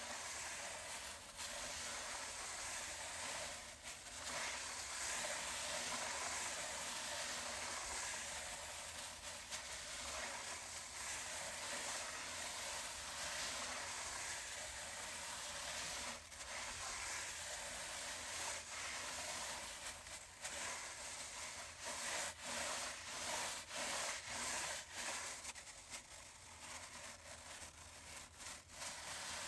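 A brush scrubbing a chair in steady back-and-forth strokes, a continuous scratchy rubbing; in the last several seconds the strokes come apart into separate swipes about one or two a second.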